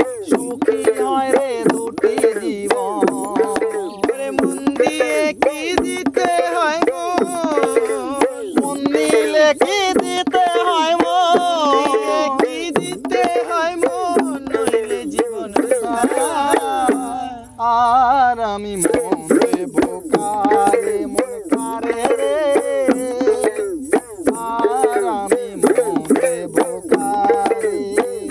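Bengali folk song music: quick hand-drum strokes under a wavering melody line, with a brief break in the melody about seventeen seconds in.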